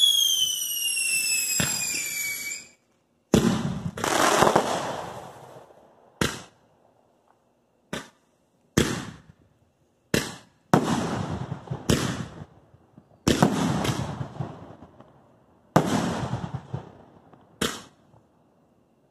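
Consumer aerial fireworks: a whistle falls in pitch for about three seconds, then about a dozen loud bangs follow at uneven intervals, each trailing off in an echo.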